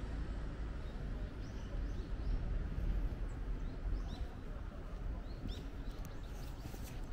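Small birds giving short, high chirps every second or so over a steady low rumble of outdoor background noise.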